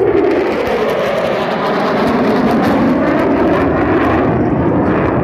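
Boeing F/A-18 Super Hornet jet fighter with twin General Electric F414 engines passing low overhead. It is a loud, steady roar whose pitch falls as it goes by.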